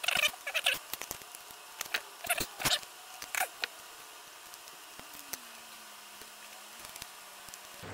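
Small metal clicks and scrapes of needle-nose pliers and a precision screwdriver handling a tiny screw on an RC truck's shock mount. The clicks come in a quick irregular run that dies away about halfway through.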